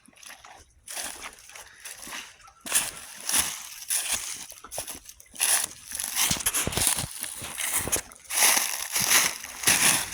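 Footsteps sloshing through shallow water and soft mud, in a run of irregular splashy strides that grow louder in the second half.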